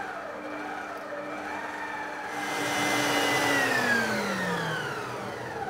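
Electric stand mixer's motor running with its balloon whisk beating egg whites into foam: a steady whine that grows louder about two seconds in, then falls in pitch from about three and a half seconds.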